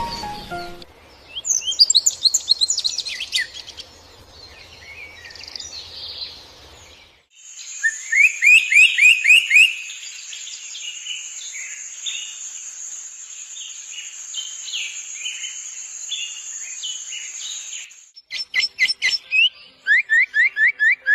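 Small songbirds singing: quick series of short rising chirps, the loudest run about eight seconds in and another near the end. A thin steady high whine sits under the middle stretch.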